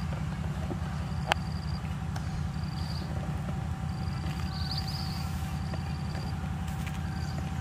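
Insects chirping in short, high trills every second or so over a steady low drone, with one sharp click about a second in.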